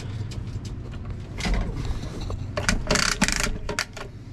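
Rustling and scraping as someone moves about and handles things in a truck cab, with a louder scraping burst about three seconds in, over a steady low hum and quick faint ticking.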